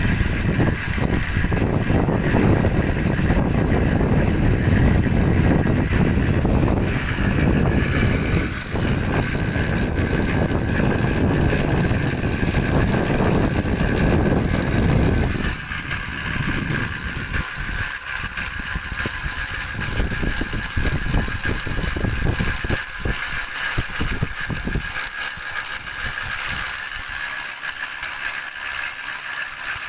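Long-arm paddlewheel aerator running: the paddles churn and splash the pond water while the electric motor and gearbox give a steady whine. About halfway through, the heavy splashing fades and the motor's steady running comes to the fore.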